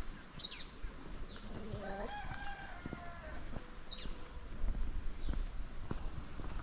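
Rooster crowing once, a long call of nearly two seconds starting about a second and a half in. A small bird gives a few short, high, falling chirps around it.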